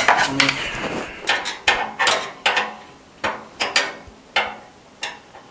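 Handling noise: about a dozen sharp clicks and knocks, unevenly spaced, that die away shortly before the end.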